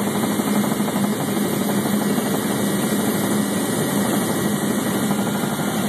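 Light aircraft in flight, heard from inside the cabin: its engine drones steadily with a fast, even pulsing and a constant low hum.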